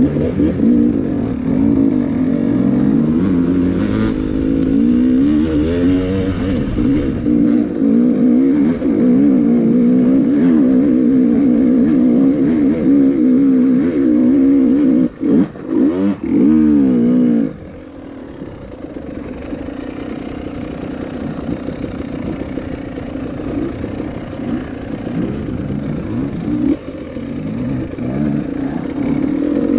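Enduro motorcycle engine revving up and down under throttle, with two brief throttle chops about fifteen seconds in. After about seventeen seconds it drops to a quieter, lower-revving run, then picks up again near the end.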